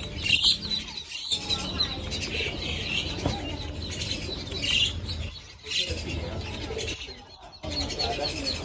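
Short, high chirping calls now and then over a steady low background rumble.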